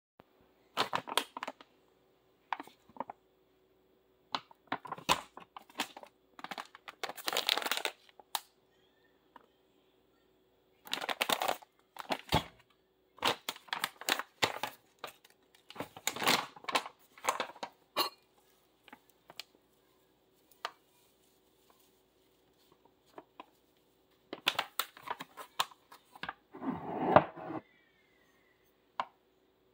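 Intermittent crinkling and rustling of packaging with scattered clicks and knocks, coming in short bursts separated by quiet gaps, the loudest burst near the end; a faint steady hum runs underneath.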